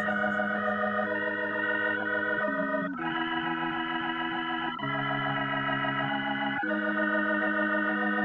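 Music: sustained organ chords, held and changing to a new chord about every two seconds.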